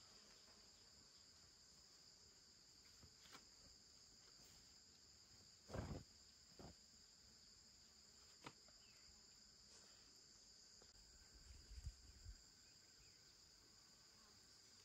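Faint, steady high-pitched insect chirring, with a few scattered soft knocks and thumps; the loudest knock comes about six seconds in.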